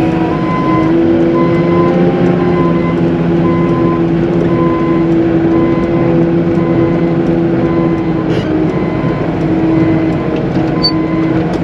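Caterpillar 906M compact wheel loader's diesel engine running steadily under load while pushing slush, its pitch rising slightly about a second in. A reversing alarm beeps repeatedly over it, about once or twice a second.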